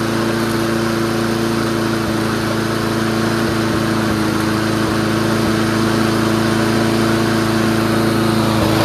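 Small gasoline engine of a homemade lawnmower and mini-bike machine running steadily at a constant speed, its pitch holding even with no revving.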